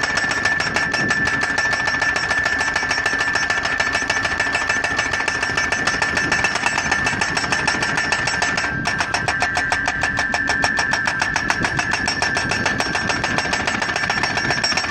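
Ingetrol Poledrill pile driver's hammer striking a solar-panel post rapidly and steadily, over a constant high whine from the machine. The blows break off for an instant about nine seconds in.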